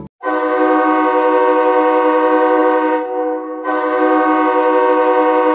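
A horn sounding a steady chord of several notes, held long. It sags briefly about three seconds in, then swells back and carries on.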